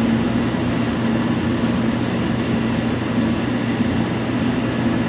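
Steady, unchanging mechanical hum of a machine running in the garage, like a fan or blower, with a constant low drone.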